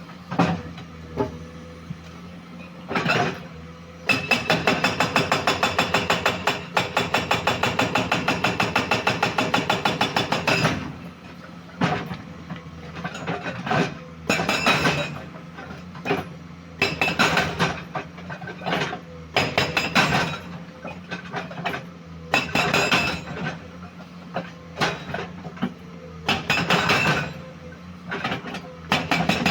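Komatsu PC210 excavator running at a steady hum, with a fast even run of loud metallic knocks, about six a second, from about four seconds in for some six seconds, then scattered irregular clanks and knocks.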